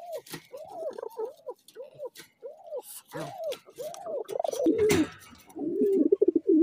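Domestic pigeons cooing in a cage: a string of short rising-and-falling coo notes about twice a second, then, past the halfway point, a louder, lower, rapidly pulsing coo. Light clicks and rustles of nesting straw and the wire cage come along with it.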